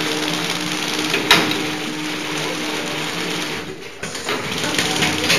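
Plastic coffee-stirrer packaging machine running: a steady mechanical whir with an even hum and one sharp click about a second in. The sound dips briefly just before four seconds in.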